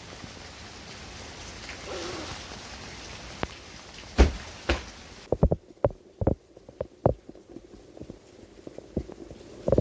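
Steady rain hiss with a few sharp knocks. About five seconds in, the rain noise cuts off abruptly and a run of irregular dull thuds follows.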